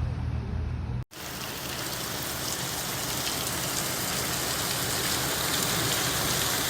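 Heavy rain pouring down in a dense, steady hiss. It starts abruptly about a second in, after a short low rumble.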